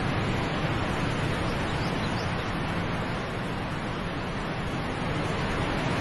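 Waterfall cascading over a series of rock ledges: a steady, even rush of falling water.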